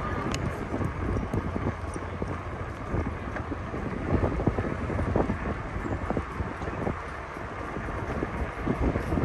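Wind rumbling on the microphone of a moving bicycle, with irregular knocks and rattles from the bike over the road surface.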